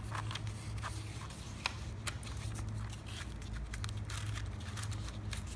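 Paper pages of an instruction booklet rustling and crackling as a hand flips and smooths them, a string of small irregular crackles over a steady low hum.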